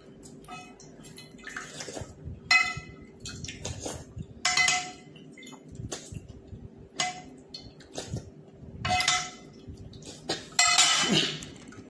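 Metal spoon clinking and scraping against a metal pan, several short clatters a second or two apart, the loudest near the end, with eating sounds of noodle soup.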